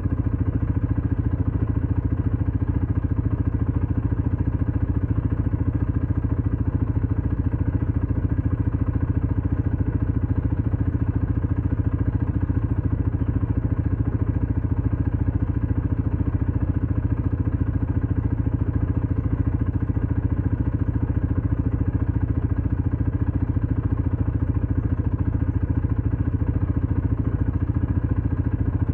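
ATV engine running at a steady speed, an even, unchanging drone.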